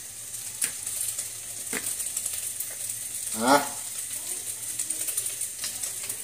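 Scrambled egg sizzling in a wok, a steady high hiss, with a few light clicks as boiled noodles are tossed by hand in a plastic colander.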